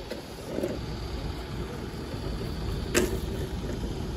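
Steady low rumble of outdoor background noise, with a single sharp click about three seconds in.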